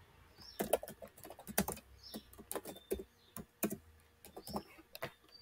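Typing on a computer keyboard: irregular, quiet keystroke clicks, a few a second, as a short phrase is typed.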